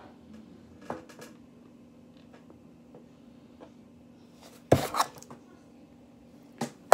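Handling noise of small objects on a desk: faint clicks about a second in, then a loud cluster of sharp knocks and clicks a little under five seconds in and one more click near the end, over a faint steady hum.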